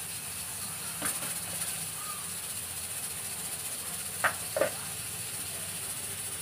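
Aluminium pressure cooker lid being worked off the pot, with a clink about a second in and two metal clinks about four seconds in, over a steady hiss.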